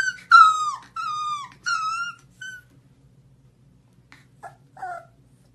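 Husky puppy whining and howling in high, falling cries: four in quick succession, then two short, quieter ones near the end.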